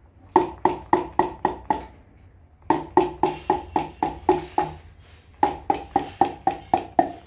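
A piston being tapped down into a Toyota 2JZ cylinder bore through a ring compressor band. Three quick runs of light taps, about four or five a second, with short pauses between. Each tap rings briefly with a hollow, pitched note.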